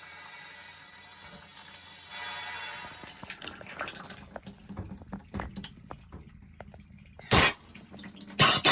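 Water dripping and trickling from a freshly cleared air-handler condensate drain line, in scattered small drips. A short, loud burst of noise breaks in a little past seven seconds, with more bursts just before the end.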